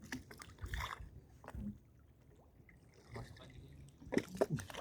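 Scattered knocks and clatters with faint water trickling, from handling gear and catch on a small fishing boat.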